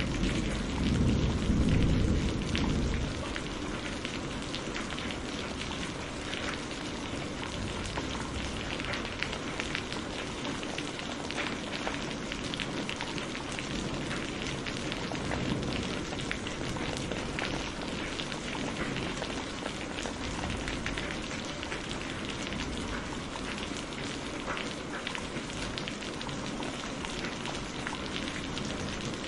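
Heavy rain falling steadily, a dense patter of drops. A low rumble of thunder rolls on and dies away in the first three seconds or so.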